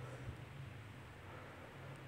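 Faint background noise: a steady low hum under a soft hiss, with no distinct event.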